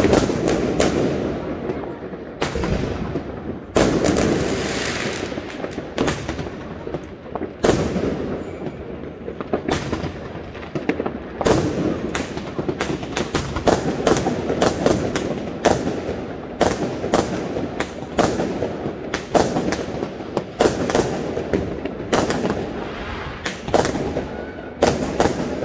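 Fireworks going off all around: a dense, irregular string of sharp bangs, about two a second, over a continuous rumble of more distant bursts.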